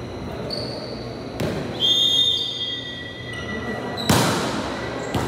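A volleyball served with a hard hand strike, a sharp slap about four seconds in that echoes through the gym hall. Before it comes a single knock, typical of the ball bounced on the court floor, and there is another short knock near the end.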